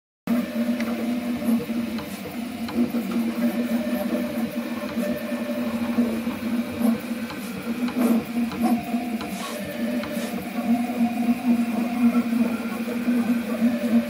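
3D printer running a print, its part-cooling fan blowing across the half-printed train-whistle pipe so that the print sings a steady low tone that wavers in strength. Fainter higher tones come and go over the printer's mechanical noise.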